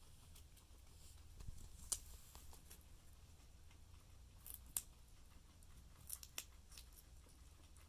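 Guinea pigs biting and chewing raw carrot: scattered crisp crunches over a faint low hum, the sharpest about two seconds in and just before five seconds in.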